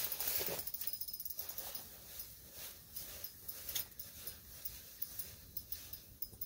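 Small ice-fishing spinning reel being cranked in fast, a quick run of faint ticks, with rustling of a nylon winter jacket loudest in the first second or so.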